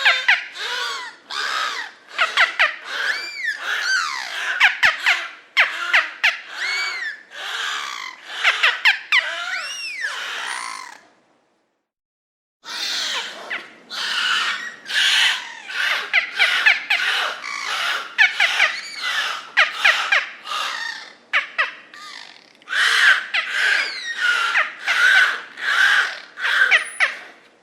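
Beluga whale vocalizations: a rapid string of chirps, squeaks and arching whistles that rise and fall in pitch, with short clicks among them. They break off for about a second and a half near the middle, then carry on.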